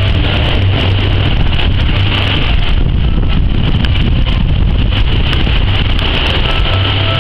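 Hurricane wind blowing hard, buffeting the microphone with a heavy low rumble over a steady hiss.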